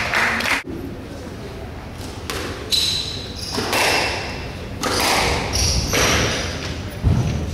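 Squash rally: the ball is struck by rackets and smacks off the court walls, about half a dozen sharp hits that ring in the court, starting about two seconds in. Short shoe squeaks on the wooden court floor come between the hits.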